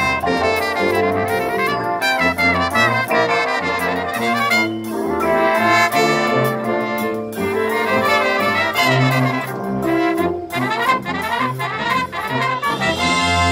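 Marching band brass section playing a passage, with trumpets and sousaphones, moving through changing chords and settling on a held chord near the end.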